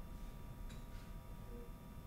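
Faint steady hiss and low hum of an open radio voice loop between transmissions, with a faint click a little before the middle.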